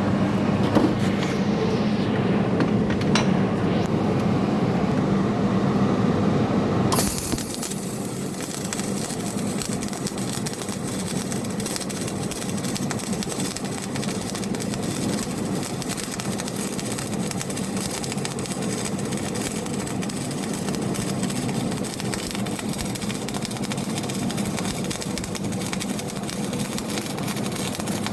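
Steady MIG welding noise: a low, dense hum that changes abruptly about seven seconds in to an even, crackling hiss, as from a MIG welding arc running.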